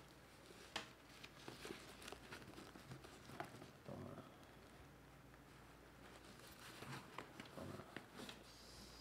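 Faint rustling and crinkling of a fabric shoulder bag and the packaging inside it as a hand rummages in the bag, with a few light clicks, the sharpest about a second in.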